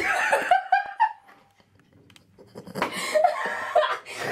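A woman laughing in high-pitched spells: one at the start and another about three seconds in, with a short lull between.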